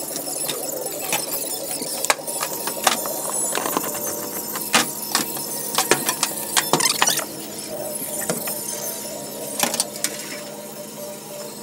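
Irregular sharp clicks and clanks of metal tools and fittings being handled, densest in the middle, over a steady hum.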